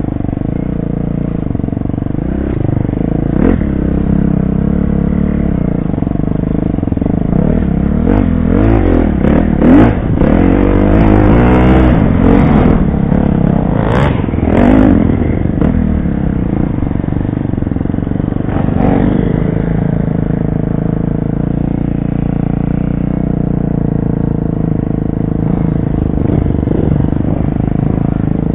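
Dirt bike engine running hard under the rider, the revs rising and falling as the throttle is worked through the trail's turns and bumps. The revs climb and drop most busily in the middle stretch, and a few knocks and clatters come from the bike hitting bumps.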